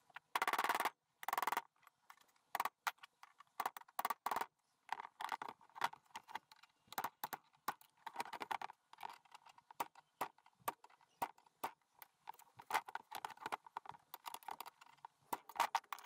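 Light, irregular clicks and taps of a pin being worked by hand into the lever of a Subaru WRX clutch pedal assembly, with two short scraping noises in the first two seconds.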